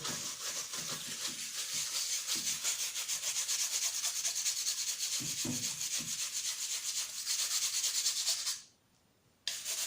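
Brush scrubbing quickly back and forth over a TV circuit board to clear flux residue and loose solder after resoldering: a steady scratchy hiss of rapid strokes, stopping for under a second near the end and then resuming.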